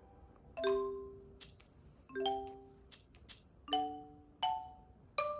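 Soft background music of sparse chime-like notes, about five in all, each struck and ringing out to fade before the next, with faint short clicks in between.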